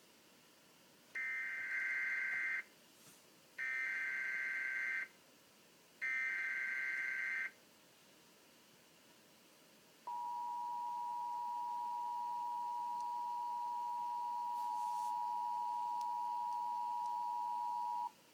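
Emergency Alert System header: three bursts of SAME data tones, each about a second and a half long, followed after a short gap by the EAS two-tone attention signal, a steady two-note tone held for about eight seconds before cutting off.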